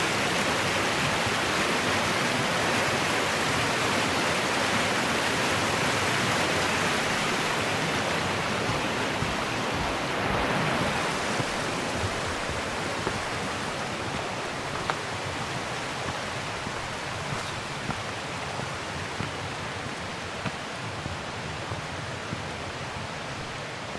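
Rushing water of a mountain stream running through a rocky gorge: a steady hiss that slowly grows fainter. A few light clicks stand out over it in the second half.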